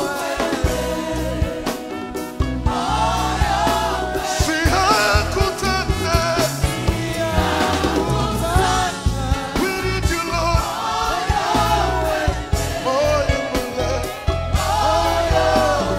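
Live gospel worship music: voices singing a melody over a band with a steady bass line and regular drum hits.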